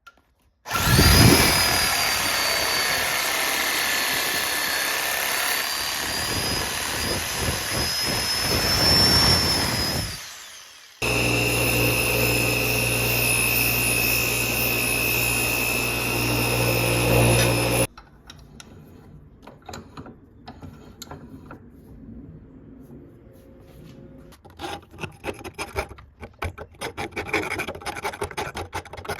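Power tools running in turn. The first starts just under a second in with a steady high whine and winds down about ten seconds in. A second starts suddenly at about eleven seconds with a steady hum and stops abruptly at about eighteen seconds. After that come quieter irregular scraping and clicking, like hand rubbing or filing.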